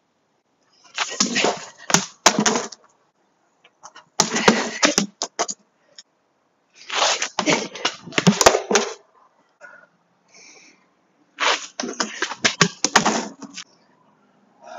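Cane strikes in four quick flurries: swishes through the air, sharp clicks and smacks against a plastic traffic cone, and scuffing footwork on concrete.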